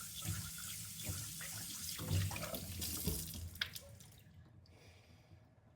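Water running from a tap into a sink, with a few light knocks, until the tap is shut off about four seconds in.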